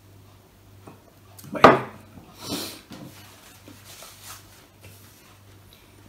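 A glass mug of drink taken from the lips and set down on a wooden table: one sharp knock about one and a half seconds in, followed about a second later by a softer hissing, rustling sound and a few faint clicks.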